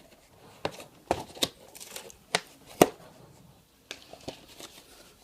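Packaging of a replacement laptop keyboard being opened by hand: scattered sharp clicks and short bursts of tearing and crinkling, about half a dozen strokes.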